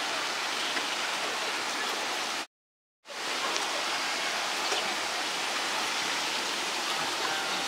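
Steady, even outdoor hiss with a few faint ticks, cutting to silence for about half a second partway through.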